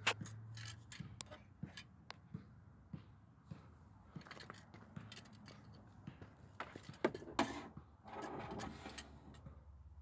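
Faint handling sounds: scattered light clicks, taps and scrapes, with a couple of louder knocks about seven seconds in.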